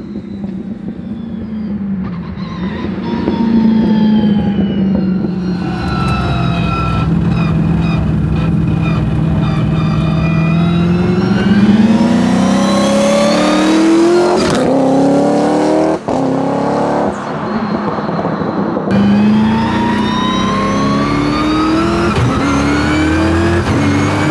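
Twin-turbocharged and supercharged Ford Coyote V8 of a custom Mustang, running steady at low revs at first, then accelerating. Its pitch climbs again and again, dropping back at each quick upshift of the paddle-shifted sequential gearbox.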